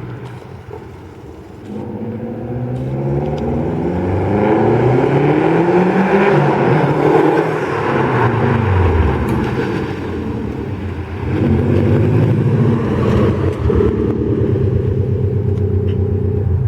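2016 Subaru WRX STI's turbocharged 2.5-litre flat-four accelerating hard under boost, its pitch climbing, dropping at a gear change about nine seconds in, then climbing again.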